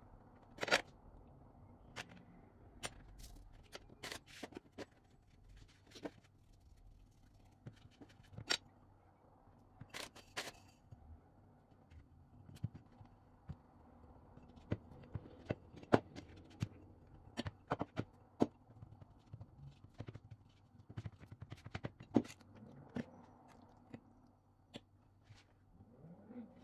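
Irregular small clicks and taps of hands shaping and crimping pie dough on a plastic cutting board, more frequent in the second half, over a low steady hum.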